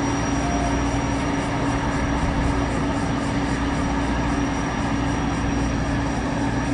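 Boeing 929 Jetfoil's gas turbines running steadily as it pulls away on its waterjets: a constant high whine over a low hum and rushing noise.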